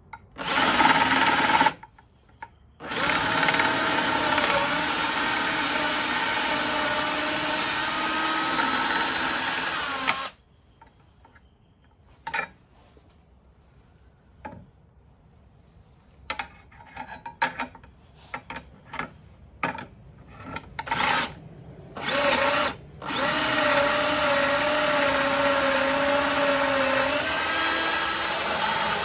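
Power drill boring an 18-inch installer's bit deep into a wooden board through a doweling jig. There are two long runs of several seconds each, with the whine wavering as the bit loads up. A short burst comes at the start, and a stretch of brief on-off pulses and clicks falls between the two runs.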